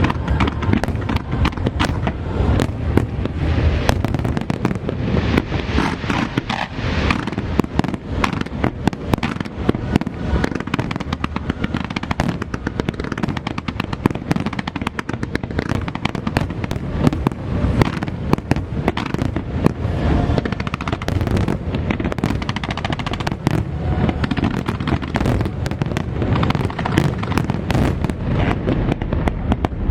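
Fireworks going off in a dense, continuous barrage: rapid sharp bangs and crackles with a low rumble beneath, many to the second.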